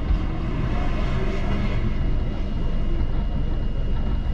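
Strong wind buffeting the microphone: a loud, low, fluttering rumble, with a faint steady high whine underneath.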